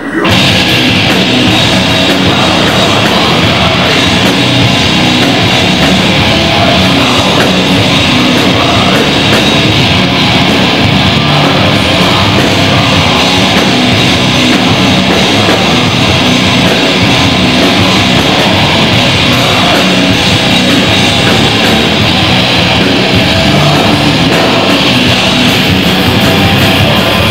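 Heavy metal band playing live at full volume: distorted electric guitars, bass and drum kit, all coming in together right at the start after a brief stop, then running on without a break.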